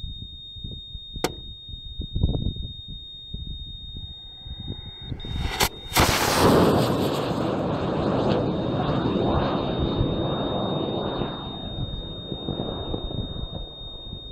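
First-stage motor of a two-stage high-power rocket igniting about six seconds in with a sharp crack, then a loud rushing noise of the liftoff exhaust that slowly fades over several seconds. Wind buffets the microphone before ignition.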